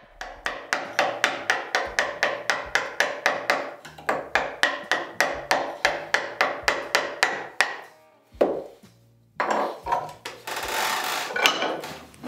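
Wooden mallet striking a chisel in quick, even blows, about three a second, as the chisel cuts curves into a block of wood. The blows stop after about eight seconds; then comes a single knock and a few seconds of rubbing and scraping.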